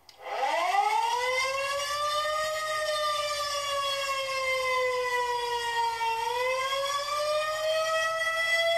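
Civil-defense tornado siren wail in the style of a Federal Signal 2001-SRN. It winds up quickly in pitch within the first second, sags slowly for several seconds, then climbs again about six seconds in.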